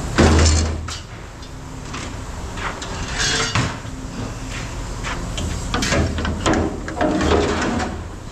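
Scrap metal being handled and tossed: a series of clanks and knocks, the loudest just after the start, with more around three, six and seven seconds in.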